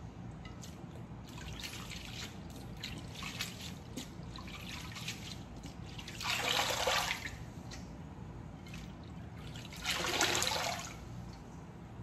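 Hands swishing shredded green papaya and carrot in a bowl of water, with small splashes and drips. Twice, about six and ten seconds in, a handful is lifted and squeezed and the water runs off it back into the bowl.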